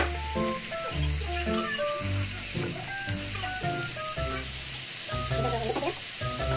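Pork belly sizzling as it fries in a pan, a steady hiss. Background music, a melody of short notes over a bass line, plays over it.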